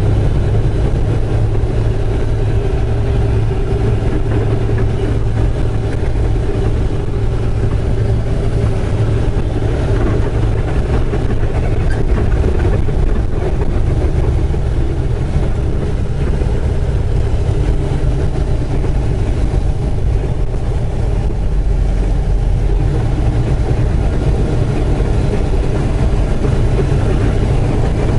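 Semi truck's diesel engine running steadily at low speed, heard from inside the cab as the truck rolls slowly across a parking lot.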